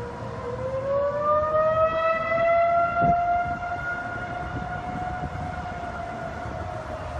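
Outdoor warning siren wailing: its pitch climbs over the first couple of seconds, holds steady, then begins to sag slightly near the end.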